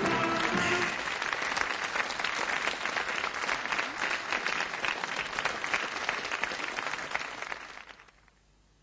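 Studio audience applauding. The last notes of the march theme end within the first second, and the applause fades out about a second before the end.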